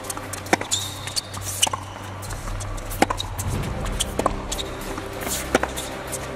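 Tennis rally: racket strings striking the ball back and forth, a sharp hit about every second and a half, with background music underneath.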